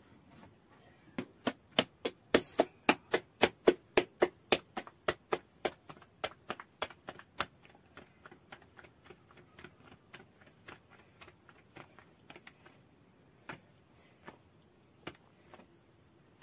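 Flatbread dough slapped from palm to palm to stretch it thin: a fast, even run of sharp slaps, about three to four a second, that gives way after about seven seconds to softer, slower pats and a few single slaps near the end.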